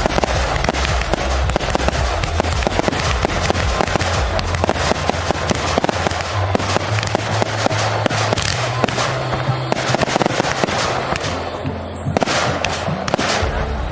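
Fireworks display: aerial shells bursting in a dense, continuous run of bangs, pops and crackles, easing briefly about twelve seconds in.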